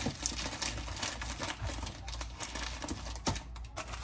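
Food packages, bags and boxes being handled: rustling with a quick run of small clicks and taps and a sharper knock about three seconds in, over a low steady hum.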